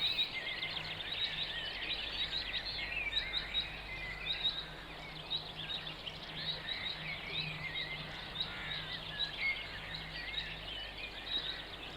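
Outdoor wildlife chorus: many small, overlapping chirps and trills keep on throughout at a low level, over a faint steady low hum.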